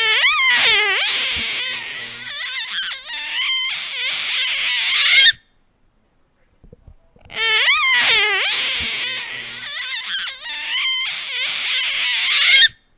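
A baby crying in two bouts of about five seconds each, with the cry wavering and gliding up and down in pitch. A silence of about two seconds separates the bouts, and the second bout repeats the first exactly.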